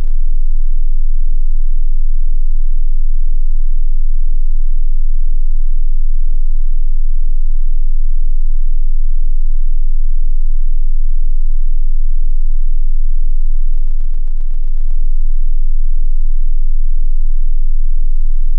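Loud, steady low sine-tone drone from a film's sound design. It is broken twice by a burst of rapid crackling lasting a second or so, about six seconds in and again about fourteen seconds in.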